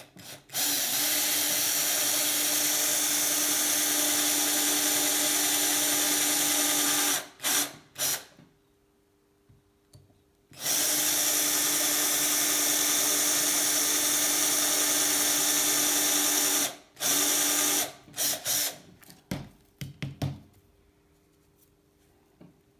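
Small electric drill running while it bores holes in a bicycle seat post. It makes two steady runs of about six seconds each, and each run is followed by a few short bursts of the motor.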